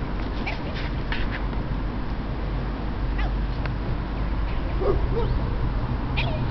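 A dog giving a few faint, short whimpers about five seconds in, over a steady low rumble of wind on the microphone.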